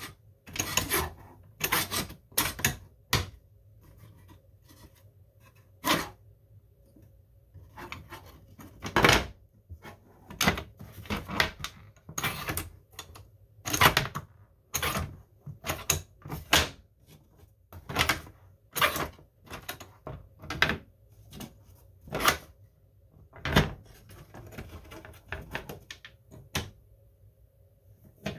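3D-printed plastic Fowler flap rib and its lever linkage worked back and forth by hand, the plastic parts clacking and knocking in a string of separate sharp clicks with short pauses between them.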